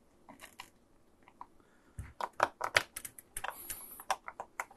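Screwdriver prying the plastic lid off a Commodore 64 power supply: a few faint ticks, then from about two seconds in a quick run of sharp clicks and small cracks as the plastic edge lifts away from the potting compound.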